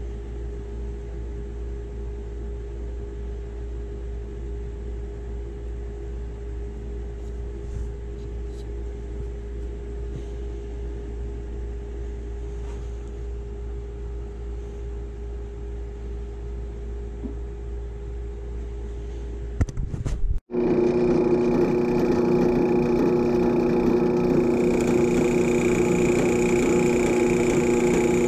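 Low, steady machine hum for about twenty seconds; then, after a brief cut, a benchtop drill press runs much louder and steady, its bit boring into a wooden toy part.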